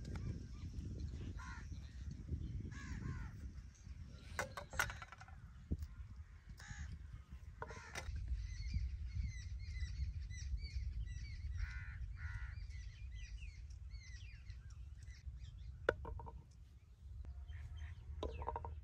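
Crows cawing again and again, with smaller birds chirping in between, over a steady low rumble. A few sharp clicks stand out, the clearest about sixteen seconds in.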